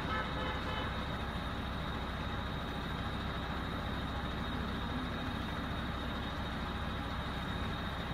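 HOWO 8x4 wrecker truck's 336 hp diesel engine idling steadily.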